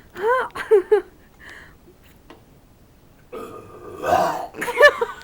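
A person burping: one long, loud, rough belch starts about three seconds in and lasts about a second and a half, loudest near its end.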